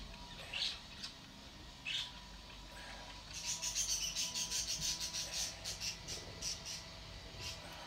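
Small birds chirping: a few single high chirps, then from about three seconds in a quick run of high chirps lasting several seconds.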